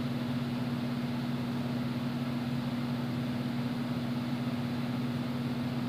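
Steady low mechanical hum with an even hiss, unchanging throughout, like a running appliance or air-handling unit in a small room.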